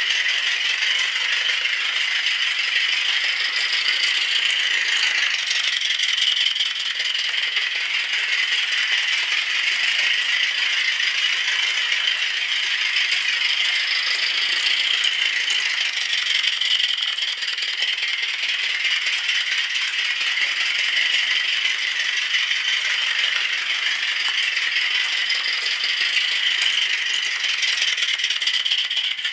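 Mamod live-steam saddle tank locomotive running steadily around a track loop: a fast, continuous rattling chuff with hiss, swelling and easing slightly every few seconds.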